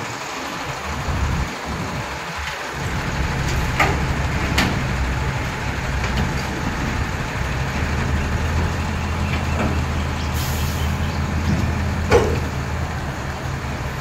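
A heavy truck engine running steadily with a low hum, with a few short knocks over it, the loudest about twelve seconds in.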